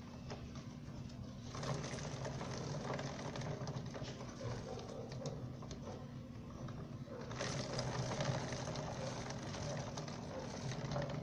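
Motorcycle drive chain running over its rear sprocket as the rear wheel spins on the stand, a light mechanical clatter over a steady low hum, while chain lube is applied. The clatter grows louder about a second and a half in and again around seven seconds in.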